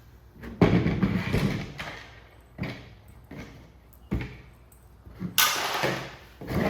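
Taken-apart electronic parts and tools being gathered up and set down on a workbench: a string of clunks and knocks, with scraping and rustling in between. One sharp knock comes about four seconds in, and a longer stretch of rustling near the end.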